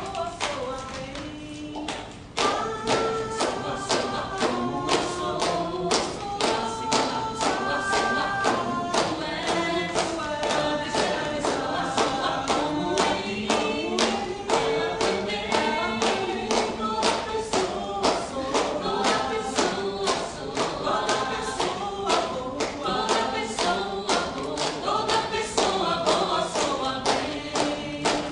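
Several voices singing together in harmony over a steady beat of sharp taps. It gets fuller and louder about two seconds in.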